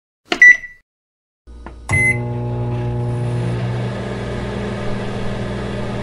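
Microwave oven: a loud click with a short beep about half a second in, another click and beep near two seconds, then the steady low hum of the oven running, which cuts off at the end.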